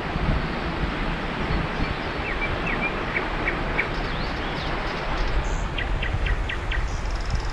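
Steady rushing noise of wind and flowing river water, with small birds chirping: a few short notes about two to four seconds in and a quick series of five near the end.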